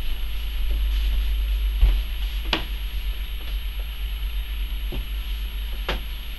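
Low rumble of wind and handling noise on a handheld camera's microphone, with a few sharp clicks scattered through it and a faint steady hiss.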